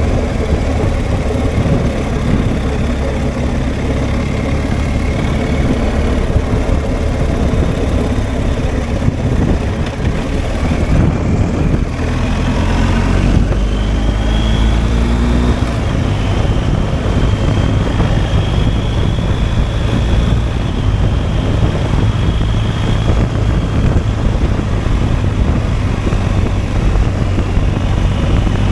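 BMW R1250 GSA's boxer-twin engine running while riding, steady and loud. About twelve seconds in, its note climbs briefly as the bike accelerates, then settles back to a steady run.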